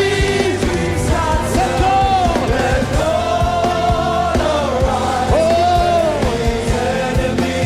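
Worship music: a singer holding long, gliding sung notes over a band with a steady bass and a regular drum beat.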